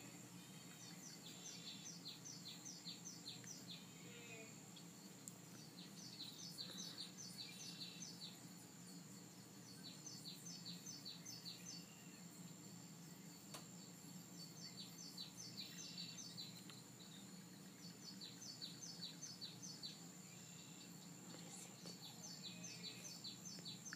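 Faint bird song from a cat-entertainment DVD played through a TV speaker: short runs of about six quick, high chirps, repeating every three to four seconds, over a steady high-pitched whine and a low hum.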